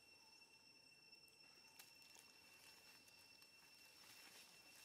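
Near silence: a few faint clicks and rustles of monkeys scrambling in a plastic basket and dry leaves, over a faint steady high-pitched tone.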